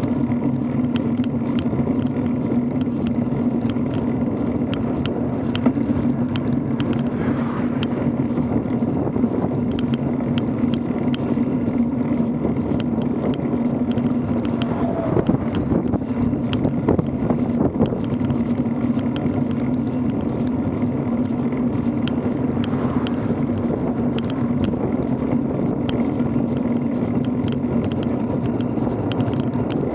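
Riding noise picked up by a bicycle-mounted action camera on an asphalt road: a steady drone of tyre and wind rumble, with many small rattling clicks from the mount. An oncoming truck passes about halfway through.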